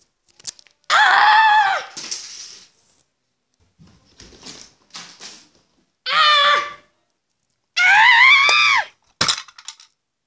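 A person's high-pitched screams, three of them, each about a second long with the pitch swooping, and a few short knocks and thumps in between.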